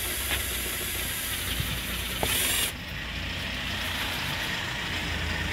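Cordless impact wrench with an extension hammering on a scooter's rear axle nut in one long, steady run. Its higher hiss drops away about two and a half seconds in.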